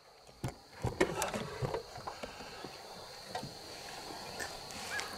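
Knocks and rustles of handling in a small boat while an angler holds a freshly caught black bass, loudest in the first two seconds. A few short chirps come near the end.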